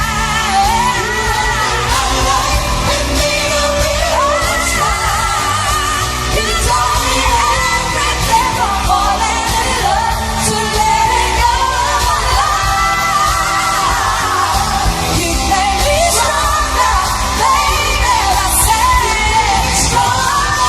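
Live pop performance: a woman singing over band accompaniment.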